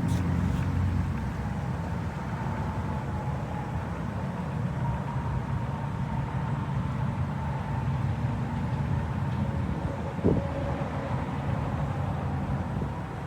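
Steady low mechanical hum with a rushing noise and a faint thin whine, with one brief knock about ten seconds in.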